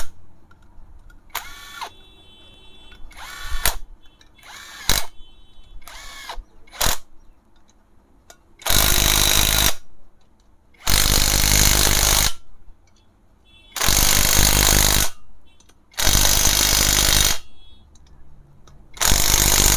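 Cordless 20 V impact wrench tightening the cylinder-head nuts on a motorcycle engine. It makes several brief spins and metal clinks at first, then, from about nine seconds in, five long runs of about a second and a half each as the nuts are driven tight.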